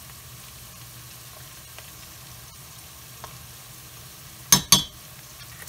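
Chopped onions frying in a stainless steel pot with a faint, steady sizzle. About four and a half seconds in, two sharp metal clinks close together as a metal utensil knocks against the pot.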